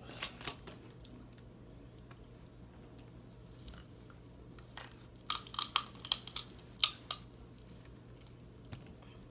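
Close-miked chewing of boiled seafood, with a quick run of sharp, crackly clicks about five to seven seconds in and a few softer clicks near the start.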